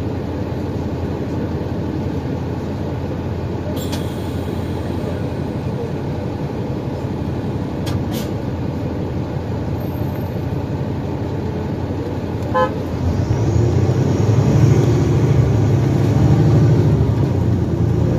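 2012 NABI 416 transit bus running with steady engine and road noise and a couple of faint clicks. About two-thirds of the way through a short beep sounds, then the engine grows louder with a faint rising whine as the bus pulls away.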